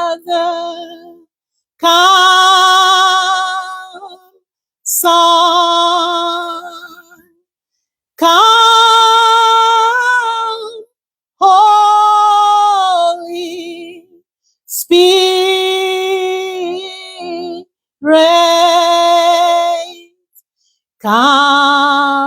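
A woman singing unaccompanied and without words, in long held notes with vibrato: about seven phrases, one every three seconds or so, each fading away into silence before the next.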